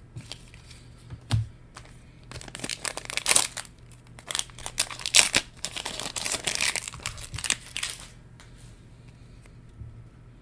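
A Weiss Schwarz booster pack wrapper being torn open and crinkled, with a single bump before the tearing starts; the crackling runs for about six seconds and stops suddenly.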